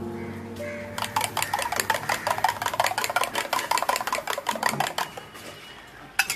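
Eggs being beaten for an omelette with a metal utensil against a cup: fast, even clicking, about nine strikes a second, that stops after about four seconds, followed by a couple of clinks near the end. Background music fades out at the start.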